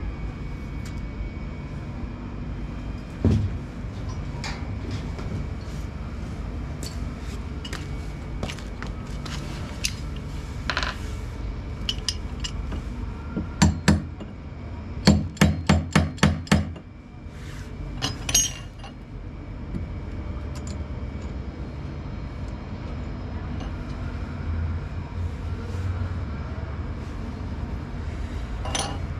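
Sharp knocks and clinks of hand tools on hard parts over a steady low hum. A little past halfway there is a run of about six loud knocks, two or three a second.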